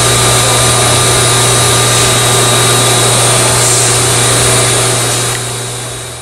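Steady machinery noise in a lab: a loud hiss with a strong low hum and several thin high whines, fading out near the end.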